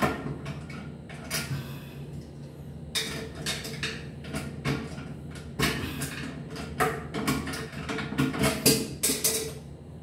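Irregular clicks and knocks of hand-tool work on the bolts under a ceramic toilet tank, tightening the tank down onto its new gasket, over a steady low hum.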